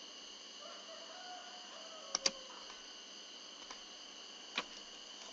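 A few computer keyboard keystrokes: a quick double click about two seconds in and single taps later on, over a steady background hiss.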